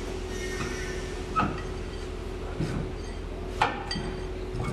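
A few sharp metal clanks and clinks of a hand tool against a semi-trailer's wheel and brake parts during a brake repair, the loudest about three and a half seconds in with a brief ring, over a steady low hum.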